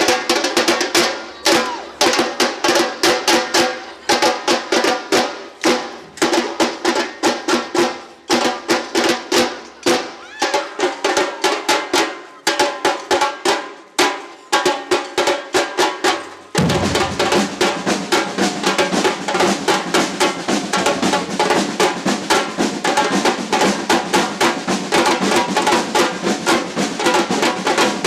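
Samba-style percussion band drumming, with snare rolls and sharp strokes in a driving rhythm. About sixteen and a half seconds in, deep bass drums come in and the playing turns denser and fuller.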